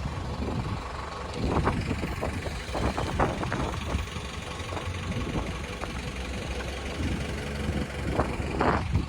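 A vehicle engine running with a steady low rumble, with several brief louder swells of noise over it.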